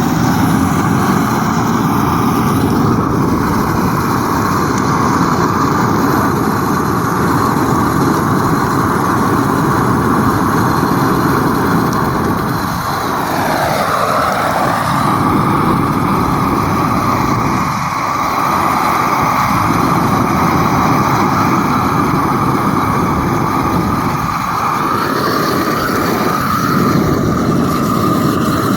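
An engine running steadily, with brief dips in level about 13 and 18 seconds in.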